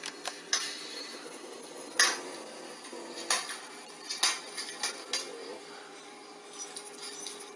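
A series of light, irregular clicks and taps, about a dozen of them, the sharpest about two seconds in.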